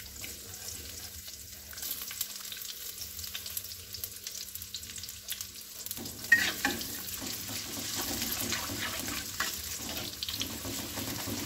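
Sliced garlic sizzling in hot oil in a wok. From about six seconds in, a metal spatula stirs it around the pan, adding scrapes and clicks and making the frying louder.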